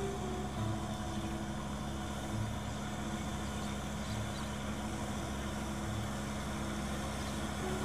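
Kubota farm tractor's diesel engine running steadily as it tills a flooded rice paddy with a rear rotary tiller, its low note swelling slightly every couple of seconds.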